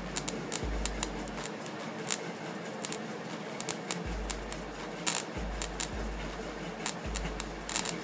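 Homemade microwave-oven-transformer arc welder crackling and snapping irregularly as the welding rod is scratched and tapped to strike an arc, over a low steady hum.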